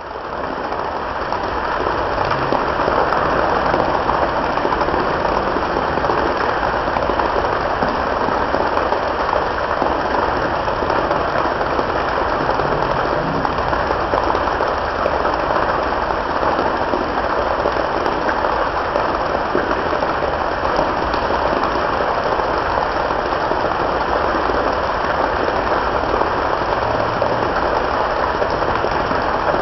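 Waterfall rushing, a steady even roar of falling water that fades in over the first couple of seconds and then holds level.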